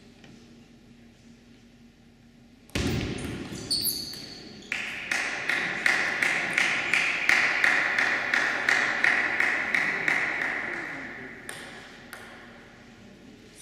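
A sudden loud knock followed by short high squeaks, then a table tennis ball struck in a steady series of sharp pings about three a second that ring in the hall and fade out near the end.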